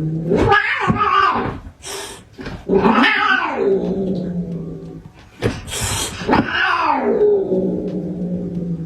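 Cat yowling in three long drawn-out calls, each falling in pitch at its end.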